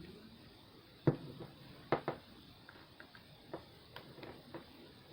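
Small plastic clicks and knocks from an action figure and its accessories being handled. The sharpest come about a second in and twice around two seconds in, with lighter taps after.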